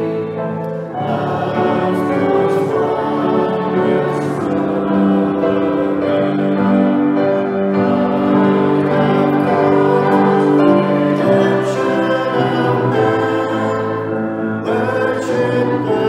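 A congregation singing a worship song together, many voices holding long notes in phrases, with short breaks between phrases about a second in and near the end.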